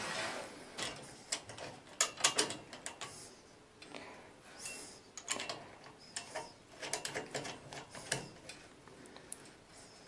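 Metal clicking and clinking of an adjustable wrench against brass and chrome fittings at a bath mixer as a threaded connection is worked by hand, in several short clusters of clicks and scrapes, loudest about two seconds in.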